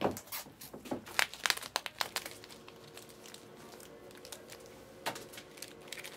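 Foil-wrapped Panini Select trading-card packs crinkling as a stack of them is picked up and shuffled by hand, with a flurry of sharp crinkles in the first two seconds and another burst about five seconds in.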